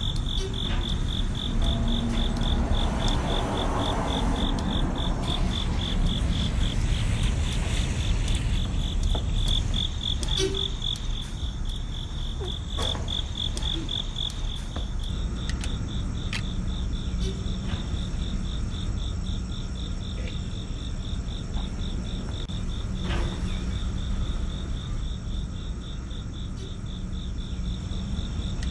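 Crickets chirping in a steady, fast-pulsing high trill over a low, even rumble of outdoor ambience, with a few faint clicks.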